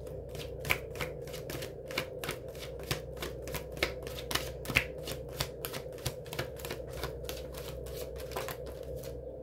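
A tarot deck being shuffled by hand, the cards slapping together in a quick irregular patter of about three clicks a second that stops shortly before the end.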